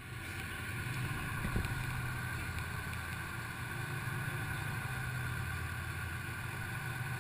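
Patrol boat's engine running steadily under a constant hiss of wind and water, with one short knock about a second and a half in.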